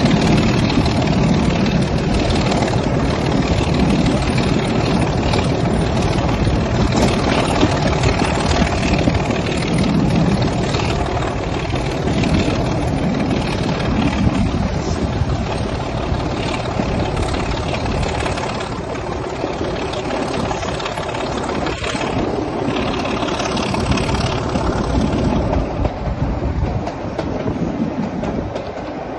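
Class 24 (Sulzer Type 2) diesel locomotive running under power as it hauls the train, heard from the open window of the coach just behind it, together with the wheels running on the rails. Its Sulzer six-cylinder engine and the wheel noise blend into one loud, steady drone, easing off slightly in the second half.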